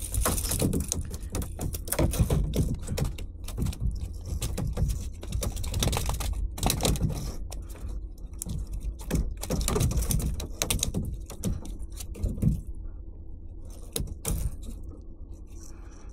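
Irregular clicks, taps and knocks of fishing pliers and a just-caught trout being handled on the floor of a kayak as the fish is unhooked and measured, over a steady low rumble.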